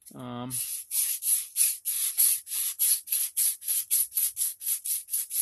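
600-grit sandpaper wrapped around a block, rubbed in short, quick back-and-forth strokes along a hatchet's steel Scandinavian-ground bevel, about four or five strokes a second. This is the honing stage after filing, sanding out the file's scratch marks on the edge.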